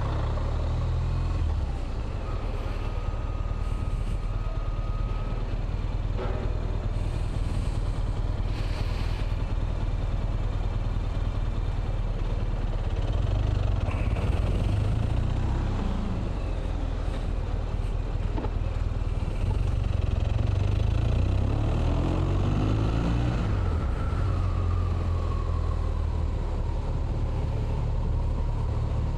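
Motorcycle engine running steadily under way in city traffic, heard with wind rush on a helmet-mounted microphone. About two-thirds of the way through, the engine note climbs as the bike accelerates, then settles.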